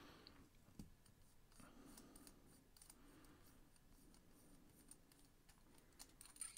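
Faint clicking and soft scraping of a Kenzo by Stypen fountain pen's barrel being unscrewed by hand from its grip section along metal threads, with one sharper tick about a second in and a few small clicks near the end.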